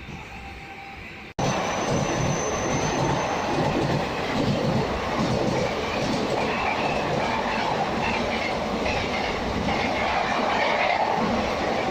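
Suburban electric train running along the track: steady wheel-and-rail noise from on board. It jumps in abruptly a little over a second in after a quieter stretch, with a brief thin high squeal just after.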